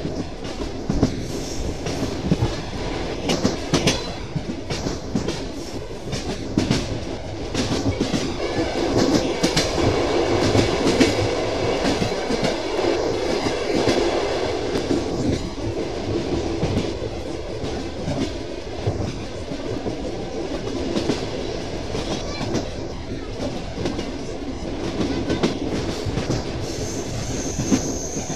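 Train wheels clattering over rail joints as the train runs, a steady rumble with repeated sharp knocks, a little louder for a stretch about a third of the way in.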